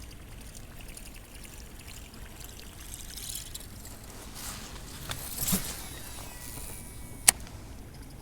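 Water splashing and trickling beside a kayak, with a few louder splashes in the middle and one sharp click near the end.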